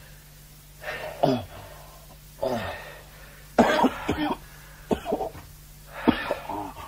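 A man coughing and groaning in five short bursts, about one a second, his voice falling in pitch in each, over a faint steady low hum.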